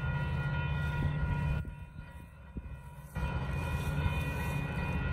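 Horn of an approaching Metra diesel commuter locomotive sounding in long blasts: one ends about a second and a half in, and another starts after a short pause and holds to the end.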